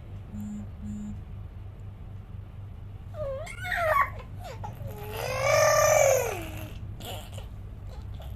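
Infant fussing with a short cry, then a long wailing cry a couple of seconds later that rises and falls in pitch, over a steady low hum.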